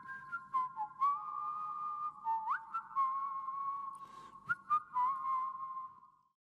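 A tune whistled in two parts at once, the notes stepping and sliding, with light clicks scattered through it; it stops about six seconds in.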